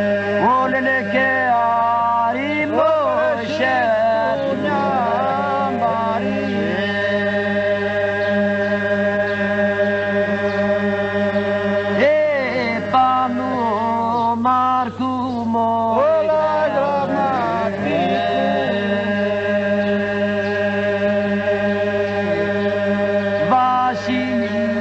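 Polyphonic folk singing: a held, unchanging drone of voices under a lead voice that sings a winding, ornamented melody.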